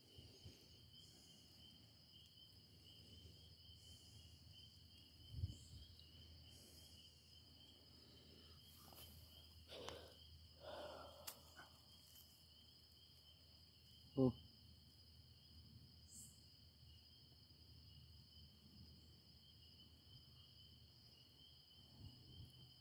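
Faint, steady calling of night insects such as crickets, heard as two continuous high pitches, with a few faint scattered noises and a brief low voiced murmur about fourteen seconds in.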